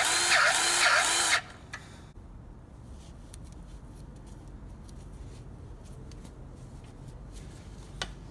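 Powered grease gun running with a rhythmic pulsing whine, about two to three pulses a second, pumping grease into a new upper ball joint's grease fitting; it cuts off about a second and a half in, leaving only faint clicks.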